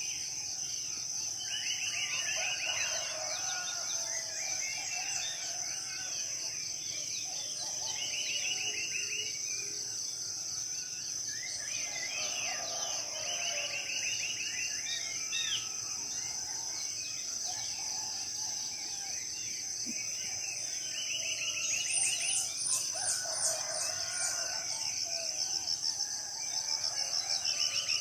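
Several forest birds calling over a steady high-pitched insect drone. A rapid trilled call repeats every five seconds or so, mixed with warbling and whistled calls.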